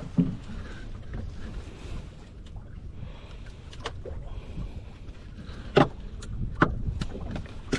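Low steady rumble of wind and water around a small boat, with a few sharp clicks and knocks as the fishing rod, reel and line are handled.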